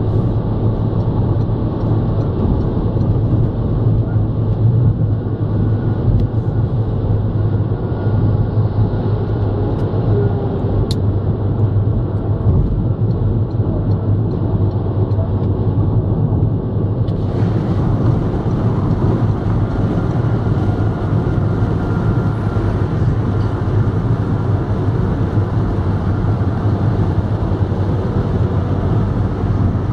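Steady road noise inside a car cruising at motorway speed: tyre roar and engine drone with a strong low hum, heard from inside the cabin.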